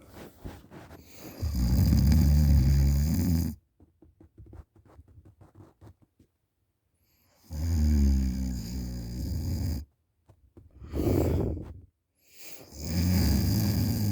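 A sleeping person snoring open-mouthed, face down in a pillow: four loud, rattling snores of a second or two each, with faint crackly breathing in the pauses between them.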